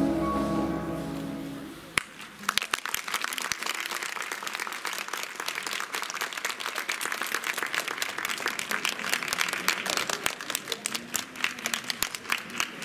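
The last held notes of the recorded routine music fade out, and about two seconds in an audience breaks into applause. The clapping goes on steadily, many hands at once.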